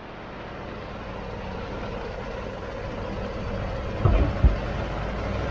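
2016 Ford F-150 pickup driving, a steady road-and-drivetrain noise with a faint steady drone that grows slowly louder, and two short low thumps about four seconds in. The owner takes the noise for a dry bearing.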